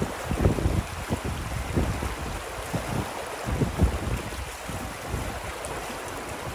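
Shallow mountain stream rushing over rocks in a steady wash, with irregular gusts of wind buffeting the microphone.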